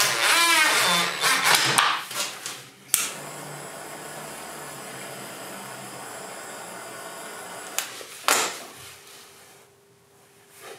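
Cordless drill whirring in short runs whose pitch rises and falls with the trigger. It is followed by a few seconds of steady blowing hiss from a small hot-air gun warming the fuel hose, then two sharp knocks.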